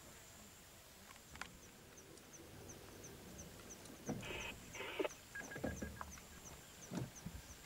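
Faint bush ambience: insects keep up a high thin trill with regular chirps about three a second. Just past halfway come two short rustles and a few low knocks.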